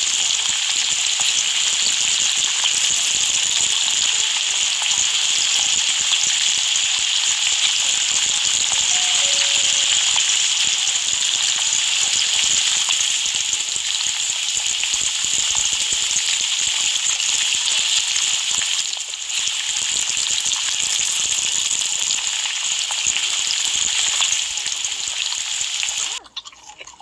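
Loud, steady hissing noise that cuts off suddenly near the end.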